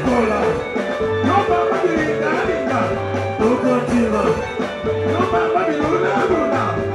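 Live soukous band music: an instrumental stretch with a repeating bass line and quick melodic guitar lines over it.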